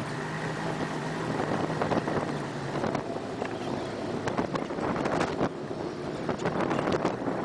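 Mercury Black Max 175 hp two-stroke V6 outboard driving a speedboat under way, a steady engine drone mixed with water rush. About three seconds in the engine tone gives way to gusty wind buffeting on the microphone.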